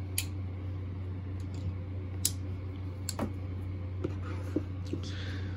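A few scattered short clicks and taps of steel pliers being handled and set down on a workbench mat, over a steady low hum.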